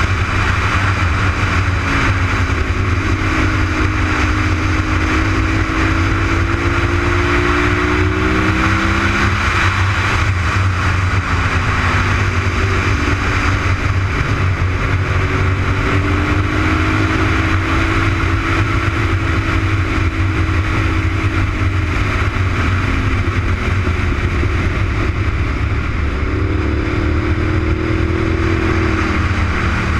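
Honda RC51's 1000 cc V-twin engine at track speed, heard under heavy wind rush on the onboard microphone. The engine note climbs and drops a few times as the bike accelerates and rolls off through the corners.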